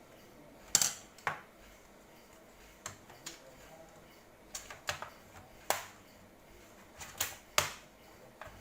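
About ten sharp clicks and taps at uneven intervals from hands working on a laptop, like keys being pressed or parts being handled.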